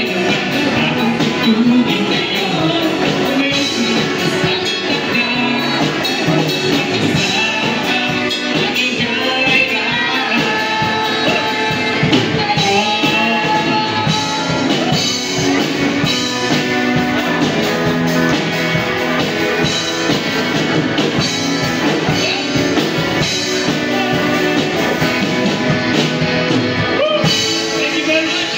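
Live band playing a rock song with a singer, at a steady level throughout.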